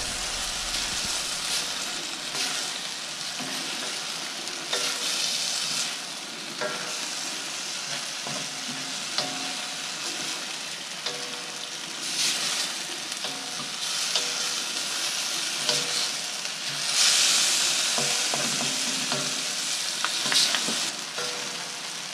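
Chicken and noodle stir-fry sizzling in a stainless steel wok as it is tossed and stirred with two utensils. The sizzle grows louder several times as the food is turned, with occasional clicks of the utensils against the metal.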